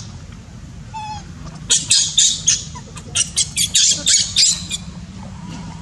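Baby macaque screaming in rapid, high-pitched shrieks, several a second: a short bout about two seconds in and a longer one from about three seconds to nearly five.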